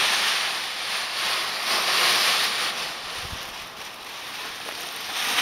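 Wind blowing across the microphone in gusts, loudest in the first half and easing about three seconds in.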